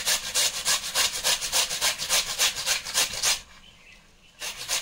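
Peeled raw potato rubbed up and down a flat stainless-steel hand grater, a rasping scrape about four or five times a second. The strokes stop for about a second near the end, then start again.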